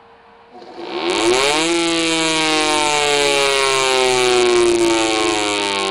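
Federal Signal Thunderbolt 1000A civil defense siren's chopper motor and rotor, test-run on its own. About half a second in it is switched on and winds up to a loud, siren-like tone within about a second. The pitch then slowly sinks, with a hiss above the tone that stops near the end.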